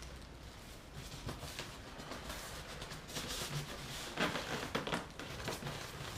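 Rustling and light knocks of packaging and parts being handled, with a slightly louder clatter a little after four seconds in.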